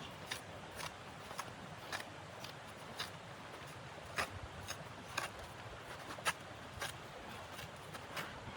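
Regular short crunching clicks, about two a second, over a steady background hiss.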